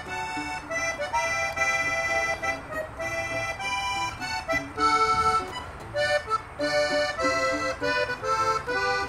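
Diatonic button accordion playing a quick run of melody notes over a strummed acoustic guitar: the instrumental break between sung verses of a norteño-style song.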